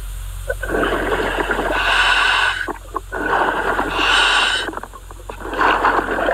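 Scuba diver breathing underwater through a regulator: three long, rough rushes of breath and bubbles, about two seconds apart, over a steady low hum.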